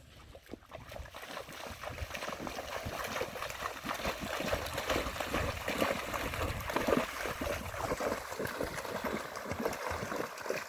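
A pony and a dog wading through a shallow river, their legs splashing the water irregularly. The splashing starts faint and grows louder over the first few seconds.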